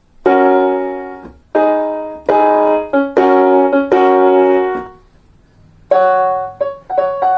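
Casio CTK-551 electronic keyboard playing chords in a piano-like voice: several held chords that each fade, a short pause, then a run of quicker notes near the end. The keyboard is sounding again after repair of its no-sound fault.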